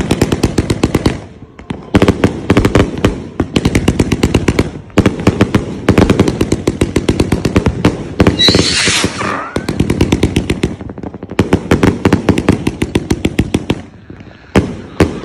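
Aerial fireworks firing in rapid strings of sharp bangs and crackles, each string lasting a few seconds, with short pauses between them. A brief high hiss with a falling whistle comes about halfway through.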